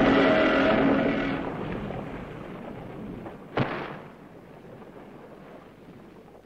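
Film sound effect of a giant monster crashing to the ground: a loud rumbling crash that dies away over the first two seconds, then a single sharp thud about three and a half seconds in.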